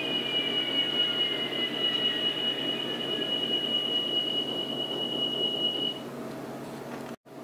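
Sound from an N-scale model of VIA Rail's F40PH-2D diesel locomotive: a steady high whine and a second whine that slowly falls in pitch, over a low rumble, stopping about six seconds in and leaving a faint hum.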